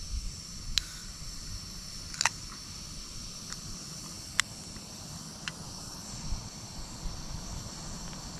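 Sharp clicks and taps, about five spread through it, the strongest a double click about two seconds in, as a beer can is handled and drunk from. Under them, a steady high hiss and wind rumble on the microphone.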